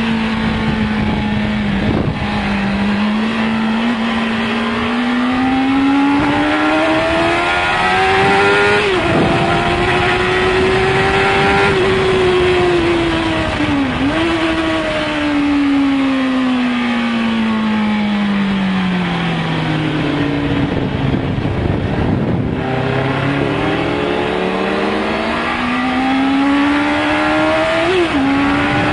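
1996 Suzuki GSX-R 750's inline-four engine at high revs, heard from on the bike. Its note climbs with short breaks at the gear changes, falls steadily for about ten seconds, then climbs again through the gears. A constant rush of wind sits under it.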